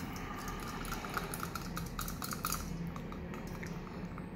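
Small plastic figure being handled: light clicks and taps of hard plastic under the fingers, with a quick run of ticks about a second in.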